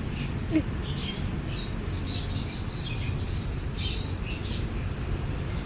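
Small birds chirping over and over in short high notes, over a steady low hum. A brief low sound, the loudest moment, stands out about half a second in.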